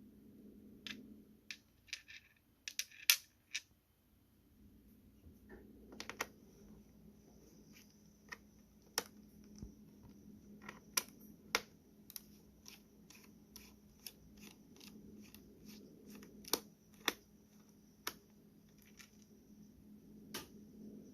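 Irregular small clicks and taps from a precision screwdriver working the screws out of a laptop's plastic bottom cover, over a faint steady hum.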